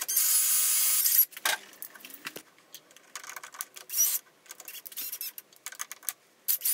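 Ryobi cordless drill spinning a three-jaw chuck's key socket to run the jaws in, a steady whir of just over a second, then a few shorter bursts and light metal clicks as the chuck is snugged onto the part.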